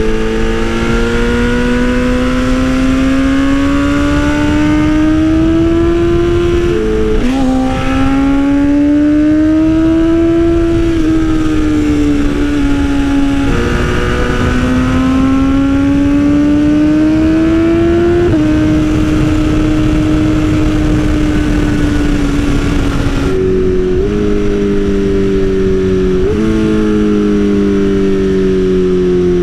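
A 2020 BMW S1000RR M Sport's inline-four engine running through an Austin Racing exhaust while riding. The pitch climbs under throttle, drops at a gear change about seven seconds in, and falls when rolling off around thirteen seconds. It pulls up again, holds steady, and jumps back up at a downshift near the end, with wind noise underneath.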